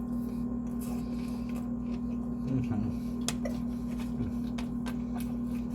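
Faint eating sounds: chewing, a few small clicks and rustles, over a steady electrical hum.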